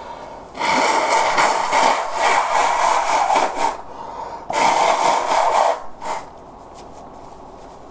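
A man blowing his nose hard, twice: a long blow of about three seconds, then a shorter one with a brief extra puff at the end. It clears a nose running after repeated sneeze-inducing.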